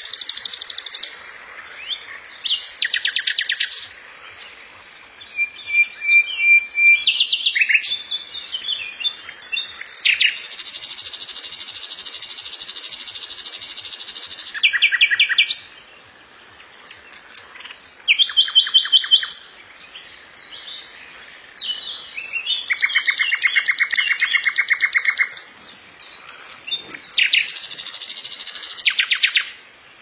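Common nightingale singing: separate loud phrases of fast repeated notes and trills, high and varied, with short pauses between them. The longest phrase, a fast high trill, runs for about four seconds from about ten seconds in.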